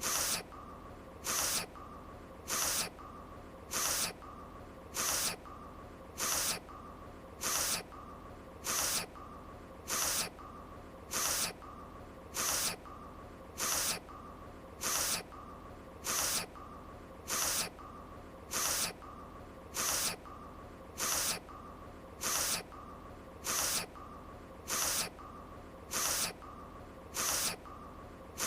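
A short nasal sniffle from an anime character's voice, looped so that it repeats evenly about every second and a quarter, over a faint steady tone.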